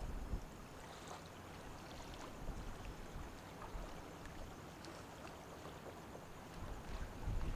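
Faint harbourside ambience: water lapping and gurgling, with a low rumble swelling briefly near the end.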